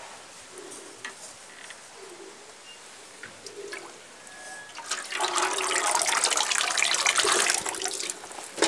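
Water being poured over trays of sprouting maize seed in perforated plastic crates, splashing and draining through. It starts about five seconds in and lasts about three seconds.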